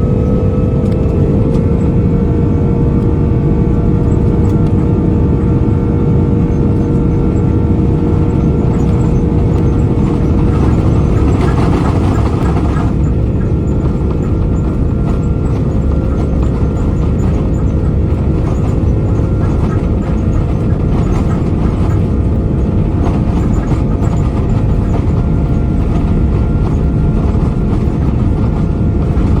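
Cabin noise of an Airbus A330-343's Rolls-Royce Trent 700 engines at takeoff power: a loud, steady low rumble with whining engine tones that climb slightly in pitch in the first second. A short burst of hiss comes in about eleven seconds in.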